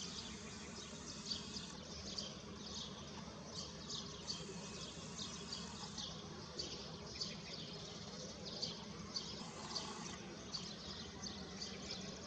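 Small birds chirping at dawn: a busy, continuous stream of short high chirps, several a second, many dipping slightly in pitch, over a faint steady low hum.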